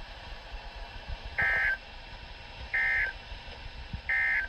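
Three short bursts of Emergency Alert System (SAME) data tones, a buzzy two-tone squawk about a third of a second long, repeated about every 1.3 s: the end-of-message signal closing a NOAA Weather Radio alert. Faint radio hiss runs beneath them.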